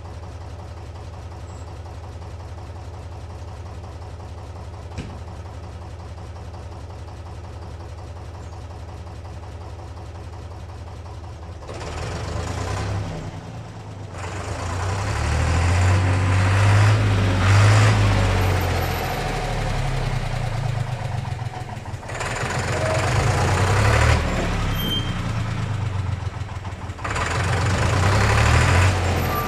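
Diesel engine of a 1992 Torpedo TX55A tractor idling steadily. About twelve seconds in it revs up, and the tractor pulls away and drives closer, the engine rising and falling in several surges with the throttle.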